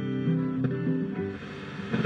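Guitar music with plucked and strummed notes, playing through a Roadstar RS-2500GPX car cassette stereo.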